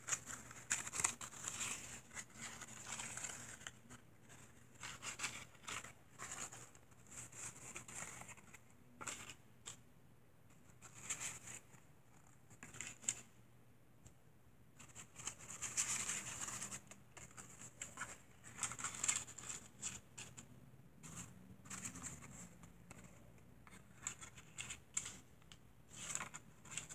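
Paper cupcake liners rustling and crinkling in short, irregular bursts as they are peeled apart from a stack and set into the wells of a cupcake tray.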